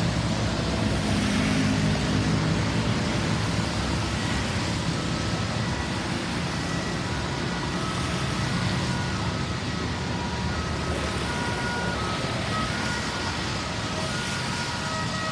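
Road traffic passing with a steady engine and tyre rumble. From about five seconds in, the faint tones of a distant emergency siren come through, growing more frequent toward the end.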